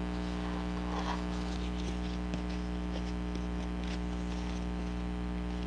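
Steady low electrical hum, with a few faint soft taps and rustles of paper book pages and a journal cover being handled.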